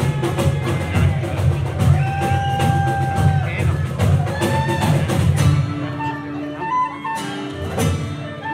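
Live folk ensemble of acoustic guitars and fiddles playing a tune. The driving low rhythm drops away about five and a half seconds in, leaving held notes and a lighter melody.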